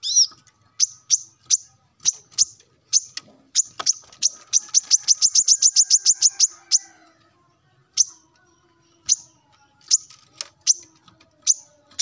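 Male brown-throated sunbird calling to a rival: sharp, high, falling chips. A fast run of about seven notes a second comes a third of the way in, then spaced single chips.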